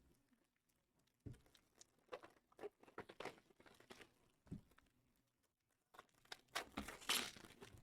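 Packaging of Panini Mosaic trading cards being torn open and crinkled by hand, in scattered short crackles and small taps, loudest near the end.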